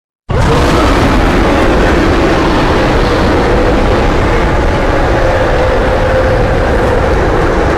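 Kaiju monster roar sound effect: one long, harsh roar that starts suddenly and is held steady for over seven seconds, a rough rumbling body with a faint held tone running through it.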